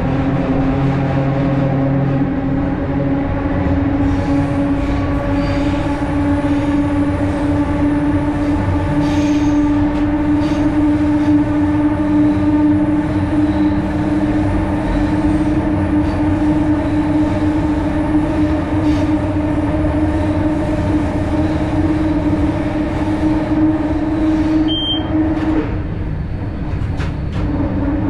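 Vintage electric train running through an underground tunnel, heard from inside the driver's cab: a steady electrical hum over wheel and rail running noise with faint clicks. Near the end the hum cuts out for a second or two, then comes back.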